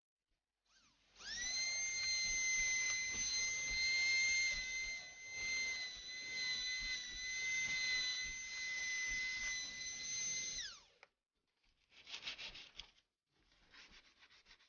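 Handheld rotary tool with a burr bit, spinning up to a steady high whine and grinding into a small piece of cow bone, then winding down after about ten seconds. Near the end come two short bursts of scratchy rubbing on the bone.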